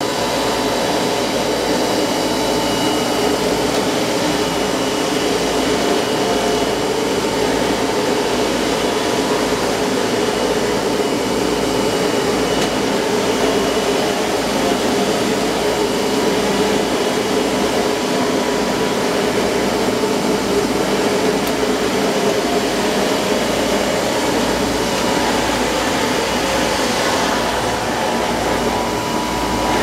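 Teckwin TeckStorm UV flatbed inkjet printer running as it prints: a loud, steady whirring machine noise with a few steady hums in it.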